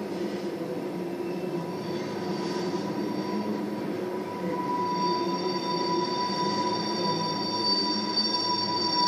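Tank cars of a Norfolk Southern oil train rolling past, their wheels squealing over the steady noise of the rolling train: one steady squeal throughout, with higher-pitched squeals joining about five seconds in and growing louder.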